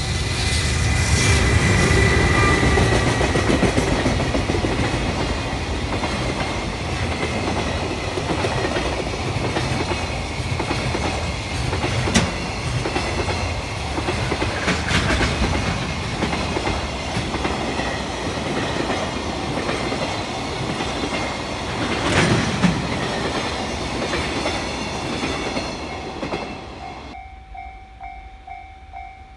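A freight train of container wagons passes close by, with a heavy rumble and wheels clacking and knocking over the rail joints. The train noise drops away sharply near the end, leaving the level crossing's warning bell ringing in a steady, even pulse.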